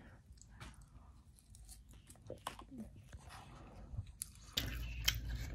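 Faint close-up chewing of a mouthful of Caesar salad, with soft crunches and small wet mouth clicks. Near the end a low steady hum comes in.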